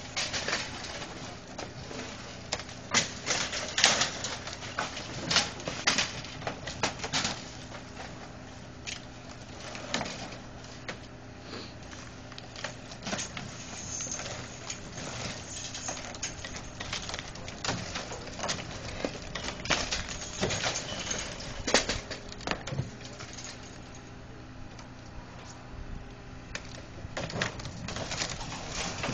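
Heavy demolition machine engine running steadily under irregular cracks, clanks and crunches of roof debris being torn and dropped.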